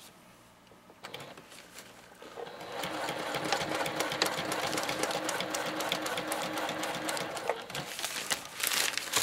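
Juki sewing machine stitching a box stitch through grosgrain webbing and silpoly tarp fabric. It starts up about a second in and runs steadily.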